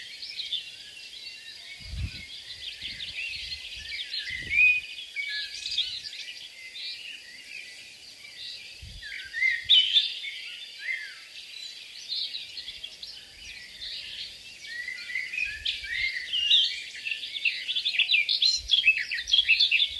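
Many small birds chirping and twittering at once, a dense, continuous chorus of short overlapping calls, with a few faint low bumps.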